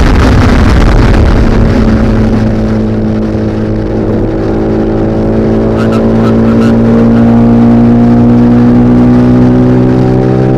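TVS Apache RR310's 312 cc single-cylinder engine pulling under load during a ride. After a rushing, noisy first couple of seconds, its note climbs slowly and steadily as the bike gathers speed.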